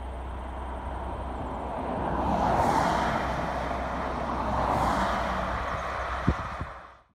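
Road traffic passing on a highway: vehicle tyre and engine noise swells as one vehicle goes by about two and a half seconds in and another near five seconds, over a low steady rumble. There is a single sharp knock near the end, then the sound cuts off.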